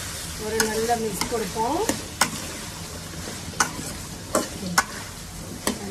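Chopped vegetables (okra, carrot, potato, tomato) sizzling in hot oil in an aluminium kadai while a steel ladle stirs them, clinking sharply against the pan several times at uneven intervals.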